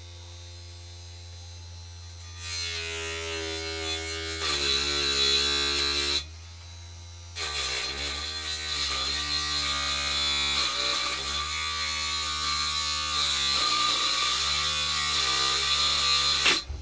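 Small electric motor of a homemade lollipop-stick table saw spinning its tin-can blade through a lollipop stick: a buzzing whine starts about two seconds in and stops briefly around six seconds. It runs again for about nine seconds, its pitch wavering and dipping as the blade bites, and cuts off just before the end. A steady low hum lies under it throughout.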